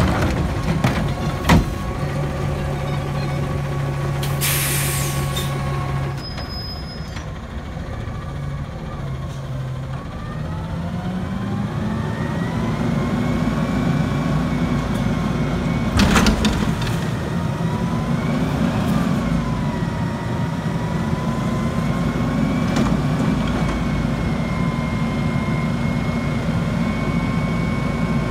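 Natural-gas front-load garbage truck running, with a short hiss of air about five seconds in. From about ten seconds the engine revs up to work the hydraulics as the forks lift the Curotto-Can over the cab to dump it, and a single loud metal bang comes about sixteen seconds in.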